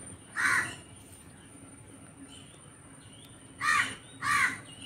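A bird calling three times: one short call near the start, then two more in quick succession near the end.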